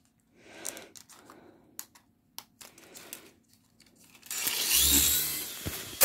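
Scattered light clicks and taps, then a loud rustling for about a second and a half, starting about four seconds in.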